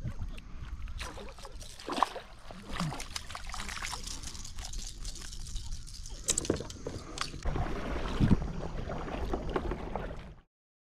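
Water splashing and sloshing beside a kayak as a hooked fish is brought in and netted, with knocks from the gear and hull and a low rumble of wind on the microphone. The sound cuts off suddenly near the end.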